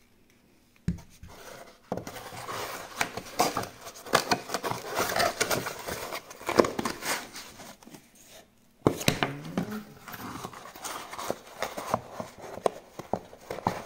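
Cardboard shipping box and packaging being handled: irregular scrapes, taps and crinkles as the flaps are moved and items are taken out. The handling pauses briefly a little past halfway and resumes with a sharp knock.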